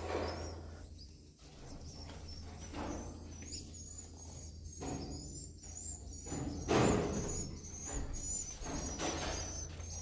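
High twittering chirps of edible-nest swiftlets repeating throughout, over a steady low hum. Scrapes and rustles come and go as a metal nest scraper works along the concrete ceiling, loudest about seven seconds in.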